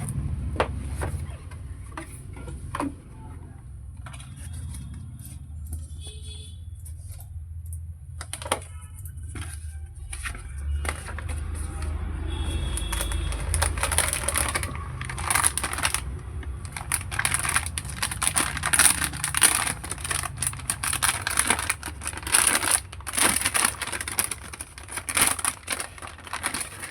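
Graphics card's retail box and packaging being opened by hand: irregular clicks, tearing and crinkling of cardboard and plastic wrapping, growing busier and louder about halfway through.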